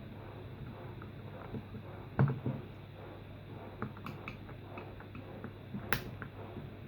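Scattered small clicks and knocks of a screwdriver and plastic parts as screws are taken out of the plastic casing of an Eheim 400 air pump, with a sharper knock about two seconds in and another near the end.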